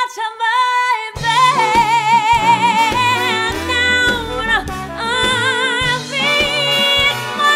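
A woman belting a high held note with wide vibrato, unaccompanied at first. About a second in, a backing track with bass and drums comes in and she carries on singing over it.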